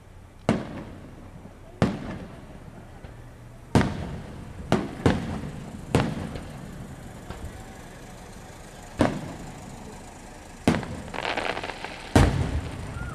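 Aerial firework shells bursting: about nine sharp booms at uneven intervals, each followed by an echoing tail. The loudest bang comes near the end.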